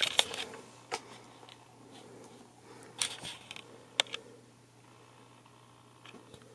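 A camera being handled: several short, sharp clicks and taps of its buttons and body, the sharpest about four seconds in, over a faint steady hum.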